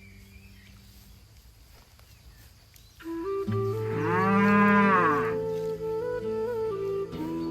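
A cow moos once, a long call that rises and then falls in pitch, over sustained background music notes that come in about three seconds in. The first three seconds are fairly quiet.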